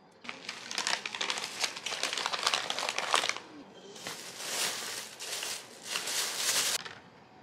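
Crinkling of packaging being handled, in two bouts of dense crackling with a short pause between.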